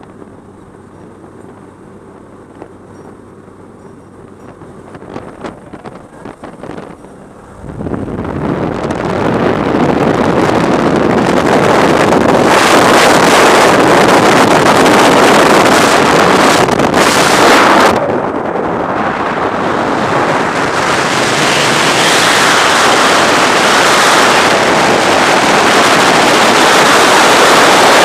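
Muffled aircraft cabin hum with a few clicks, then a sudden loud rush of wind over a helmet-mounted camera about seven and a half seconds in as the jumpers reach the open door and climb out. Wind rushes loudly on through freefall, dipping briefly about eighteen seconds in.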